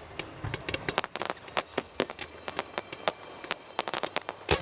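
Fireworks display going off: a rapid, irregular string of sharp bangs and pops, several a second. A deeper, heavier bang comes about a second in, and the loudest comes near the end.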